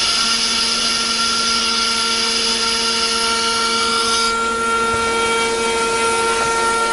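CNC router spindle running while milling wood, a steady high whine. A higher rushing cutting noise over the whine stops about four seconds in, and the whine runs on.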